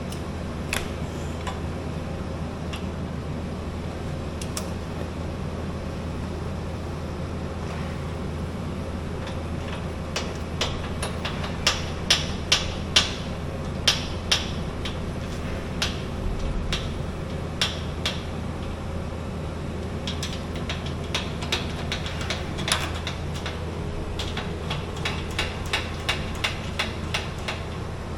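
Scattered metallic clicks and taps of hand tools working on the scissor lift's axle and bushing parts, coming in clusters, over a steady low machine hum.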